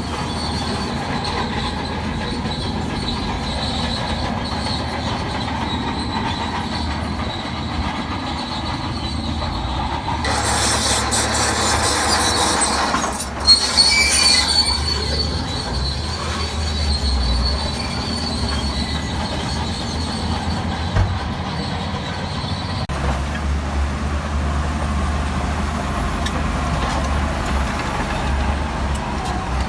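Crawler bulldozer working, its steel tracks squealing and clanking over the engine's running. A louder stretch comes about ten seconds in, with a sharp squeal in the middle.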